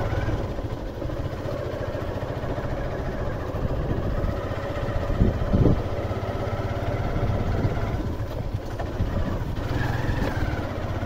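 Motorcycle engine running steadily as the bike is ridden along.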